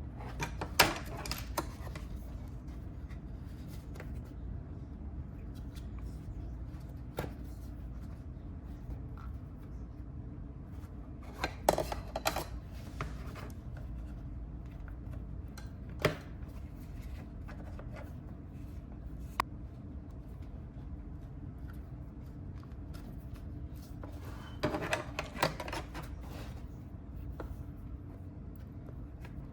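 Scattered taps, clicks and short scrapes of hand tools and leather being handled on a work surface, some in small clusters, over a low steady hum.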